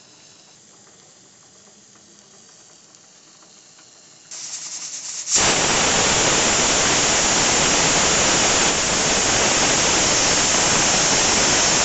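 Aluminium pressure cooker whistling: the weight valve lifts and steam jets out in a loud, steady hiss. It builds about four seconds in, goes full about a second later, and carries on to the end. The whistle marks the pressure build-up that cooks are counted by, here while waiting for three whistles.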